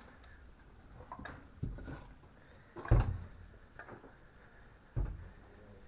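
Three dull thumps with a few light knocks and clicks between them, the loudest about three seconds in.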